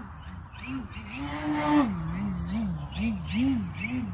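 Electric RC aerobatic plane in flight, its Dualsky 530KV motor and 16x7 carbon prop whining up and down in quick pulses of throttle. About a second and a half in the pitch holds high and grows loudest, then falls away.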